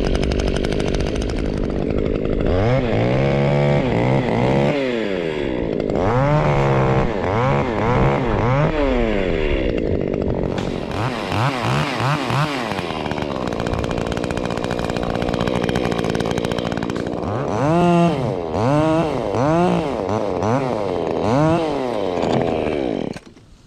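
Stihl top-handle chainsaw running hard and revving up and down over and over as it cuts through a limb, then cutting off suddenly near the end.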